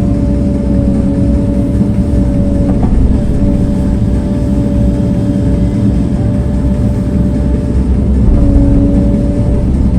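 Engine of a bladed earthmoving machine running steadily under a learner's control: a heavy low rumble with a steady hum above it, which breaks off briefly about three seconds in.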